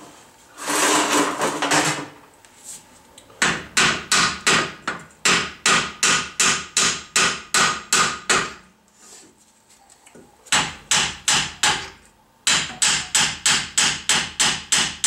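Hand hammer striking the steel front steering knuckle assembly of a VW Golf in quick runs of sharp, ringing blows, about three to four a second, with two short pauses. A brief rushing noise comes about a second in, before the hammering starts.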